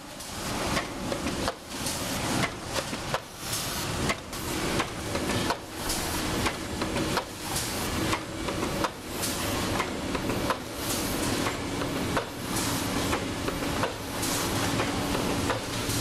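Aluminium foil container press line running: a steady mechanical clatter with a clanking stroke about once a second.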